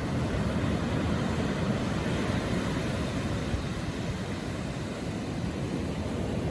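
Ocean waves at low tide rolling in and washing up the beach, a steady rushing hiss that eases slightly about five seconds in and then builds again.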